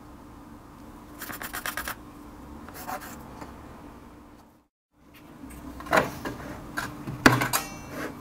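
Parts and wood being handled on a workbench: short rattling scrapes, then a brief cut to silence, then more clatter with a few sharp knocks.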